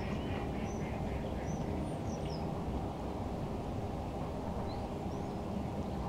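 Lakeside bird ambience: a steady low background rumble with several short, high chirps from small birds scattered through it. A few faint, ragged calls sound in the first second or so.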